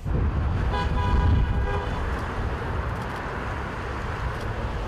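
A car horn sounds once for about a second, over loud street noise with a heavy low rumble.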